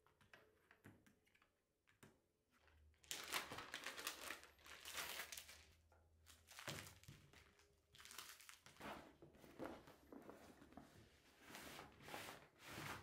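Clear plastic suitcase cover crinkling in repeated bouts as it is handled and unfolded, starting about three seconds in.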